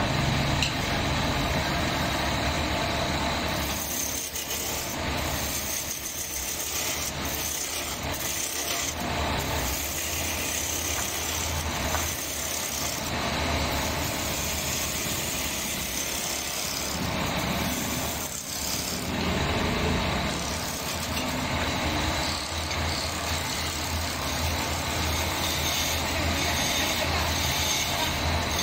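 Wood lathe running with a steady low hum while a turning chisel cuts into the spinning wooden blank, a rough scraping, shaving sound that swells and eases as the tool works along the piece.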